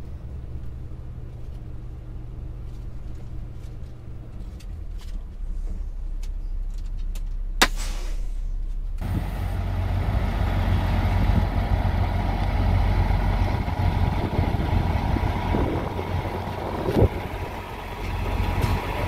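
Semi truck's diesel engine idling with a steady low hum, with one sharp click about eight seconds in. From about nine seconds the idle continues under a louder, steady hiss.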